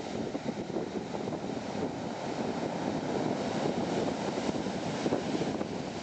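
Sea waves breaking on a cobble beach: a steady rush of surf that grows a little louder toward the end as a larger wave crashes onto the stones.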